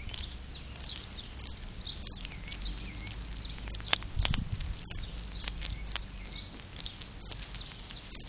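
A gray squirrel rummaging and chewing in loose birdseed on a feeder tray right at the microphone, with scattered clicks and scratches of seed and paws and a low bump about four seconds in. Small birds chirp repeatedly in the background.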